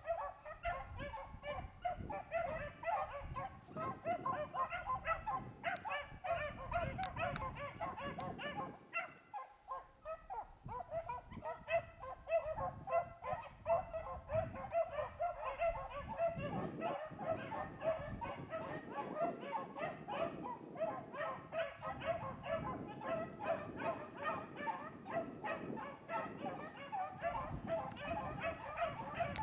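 A pack of beagles baying in a steady, overlapping chorus of rapid short cries as they run a rabbit's scent trail.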